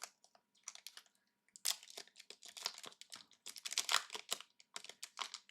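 Trading-card pack wrapper being torn open and crinkled, in intermittent crackles that grow busier about a second and a half in.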